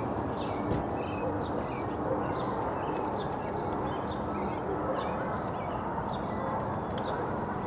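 Birds chirping, short high calls repeating about two or three times a second, over a steady low background hum.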